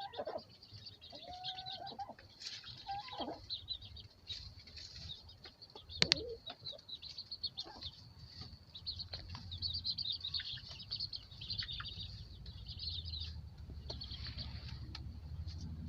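Baby chicks peeping continuously in many short high chirps, with a few lower chicken calls in the first few seconds and one sharp click about six seconds in.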